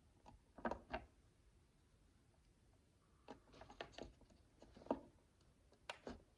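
Micro building bricks, tiny plastic pieces, clicking and tapping faintly as they are picked up and pressed together. The clicks are sparse and irregular: a pair under a second in, a small cluster a few seconds in, and a couple more near the end.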